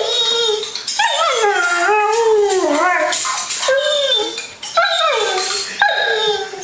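Pet dog howling at phone ringtones: a string of long, wavering howls that slide down in pitch, one after another with short breaks.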